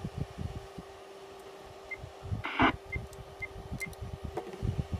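Icom IC-2820 transceiver giving short high key beeps, four of them spaced under a second apart in the middle, as its buttons are pressed to switch from FM to DV mode. A brief rush of noise comes just before them, over a low rumble and a steady hum.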